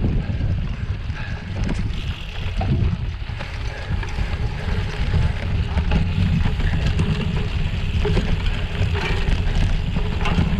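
Wind buffeting the camera's microphone in a steady low rumble, with the rolling noise and rattle of a gravel bike on a rough trail.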